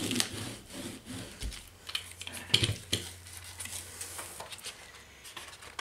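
Hand brayer rolled over a sheet of paper laid on a gel printing plate, with soft paper rustles and a few light clicks, then the paper peeled off the plate.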